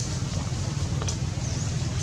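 Steady low outdoor rumble, with a faint high chirp about one and a half seconds in and a soft click near the middle.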